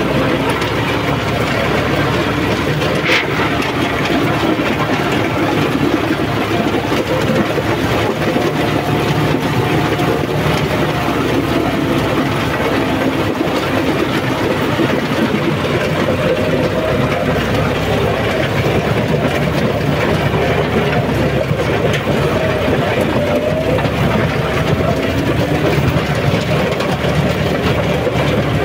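John Deere 5210 tractor's three-cylinder diesel engine running steadily under load, driving a rotavator through dry soil.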